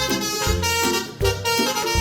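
Upbeat background music with a steady beat and horn-like melody.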